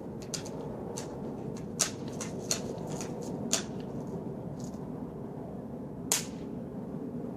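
A BB gun being handled and fired: a series of sharp clicks and snaps at uneven intervals, four of them louder than the rest.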